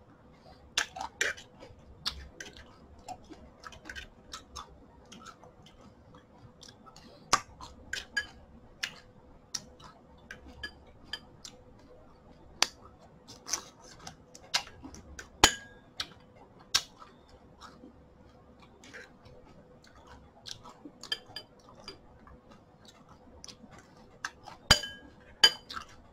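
Eating cornflakes in milk: a spoon clinking and scraping against a ceramic bowl, with chewing, heard as scattered sharp clicks and ticks of uneven loudness.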